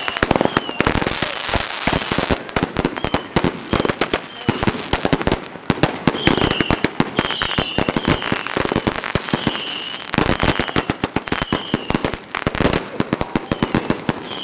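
Fireworks going off in a dense, continuous barrage: rapid loud bangs and crackles, with short whistling tones cutting in again and again.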